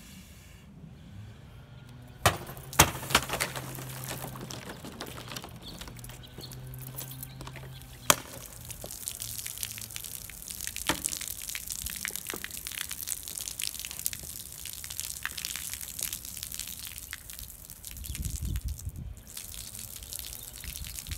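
Three sharp cracks about two seconds in and another near eight seconds: a heavy chopping blade cutting through full plastic soda bottles. Then soda gushes and splashes from a cut bottle onto the ground.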